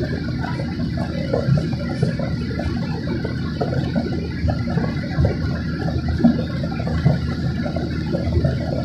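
Steady cabin noise of an airliner in its climb after takeoff: a dense, even low rumble from the jet engines and the air rushing past the fuselage, with a hiss on top, heard from inside the passenger cabin.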